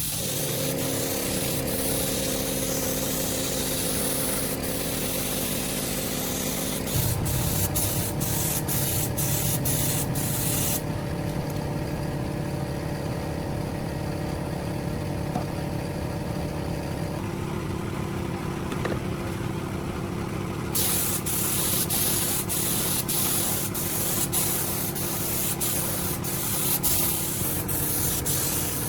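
A power tool runs steadily with a motor hum under a hissing, scraping noise, the kind made by sanding or spraying on motorcycle parts. The hiss drops out for about ten seconds in the middle while the hum carries on.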